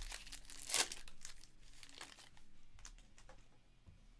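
Plastic wrapper of a Panini Donruss Optic Choice Baseball card pack being torn open and crinkled by hand. The crackling is loudest in the first second, then thins to lighter rustling.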